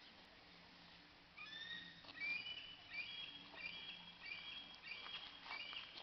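Bird chirping: a quick run of short, high notes at several pitches, starting about a second and a half in and going on repeatedly.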